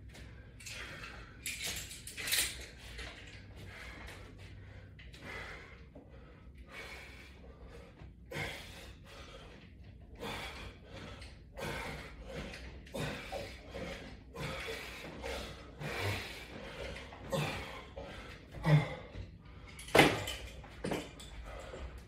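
Resistance-band workout at a wall-mounted latch bar: soft, irregular rustles and knocks about every second as the bands are pulled, with a few sharper knocks, the loudest near the end.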